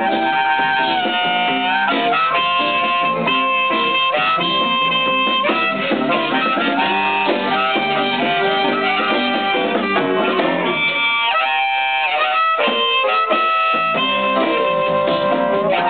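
Live band playing a soul number, a harmonica taking the lead with held notes that bend and slide, over electric guitar and drums.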